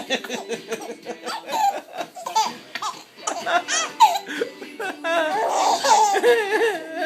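Baby laughing in a string of short bursts of giggles, then a longer, louder stretch of laughter about five seconds in.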